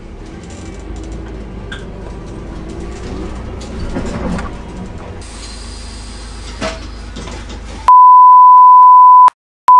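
Ride noise inside a bus: a steady low engine rumble with rattles and small knocks. About eight seconds in it gives way abruptly to a loud, steady test-tone beep, the reference tone that goes with colour bars, which breaks off after about a second and a half and starts again near the end.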